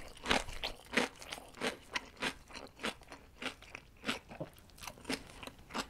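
Crunchy homemade pickle slices being chewed close to the microphone, a crisp crunch about three times a second.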